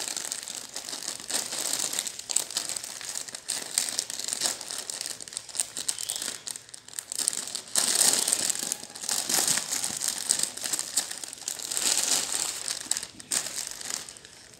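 Clear plastic saree packaging crinkling and rustling as hands handle it and open it, in irregular bursts that grow louder about halfway through.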